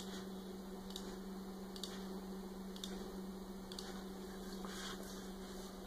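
Faint room tone with a steady low hum, broken by a few faint clicks about a second apart: mouse clicks placing line points in a drawing program.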